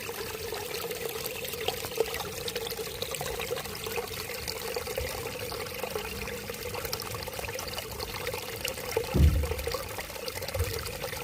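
Water pouring and trickling steadily, with fine crackling splashes. Low thuds come about nine seconds in and again shortly after.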